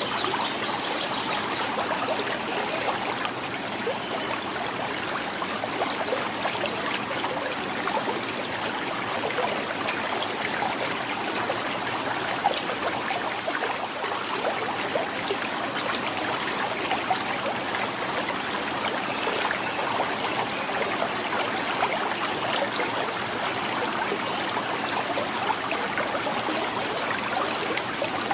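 Small river flowing over stones, a steady gurgling and trickling of water with many small splashes.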